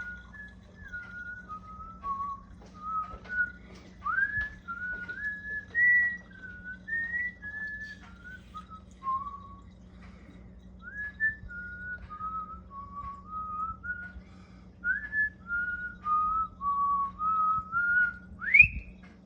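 A person whistling a tune: clear single notes, one after another, wandering up and down, with a quick upward slide near the end. A faint steady low hum runs underneath.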